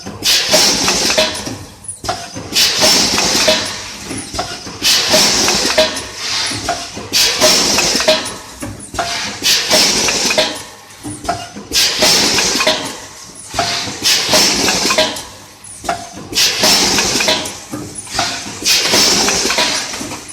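Automatic snack-chip pouch packing machine (multihead weigher feeding a vertical form-fill-seal bagger) running its bagging cycle about every two seconds. Each cycle is a burst of hiss and clatter with clicks, then a short lull.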